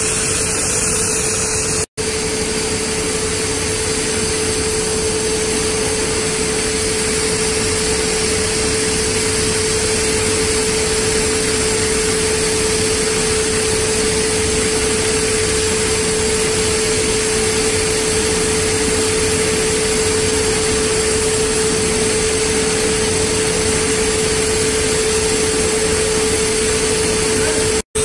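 Carpet overlock machine running: its electric motors and sewing heads give a steady mid-pitched whine over even machine noise. The sound drops out for an instant twice, about two seconds in and just before the end.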